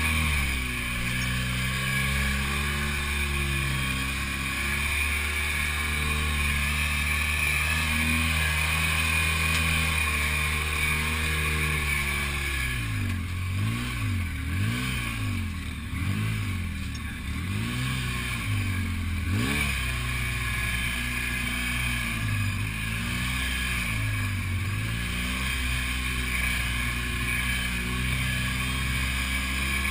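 Engine of an off-road side-by-side buggy heard from its open cockpit while driving a dirt forest track. It holds a steady note at first, then revs up and down repeatedly for several seconds around the middle, and runs more evenly again toward the end.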